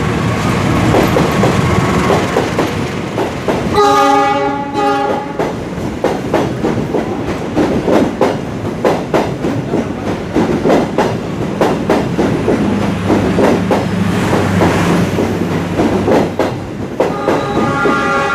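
Train passing close by, sounding its horn for about a second and a half near the start and again near the end. In between, its wheels clack steadily over the rail joints.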